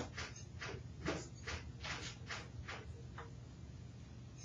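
Pencil strokes scratching on drawing paper, quick short strokes about four a second that stop about three seconds in.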